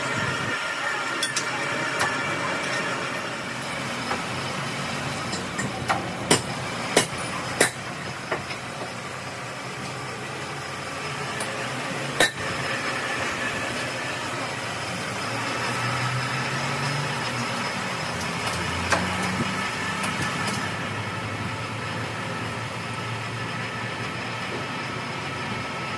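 Sharp metal knocks and clinks, a few close together and one more a few seconds later, as a cast-iron cylinder head is clamped onto a resurfacing machine's table, over steady machine-shop hum.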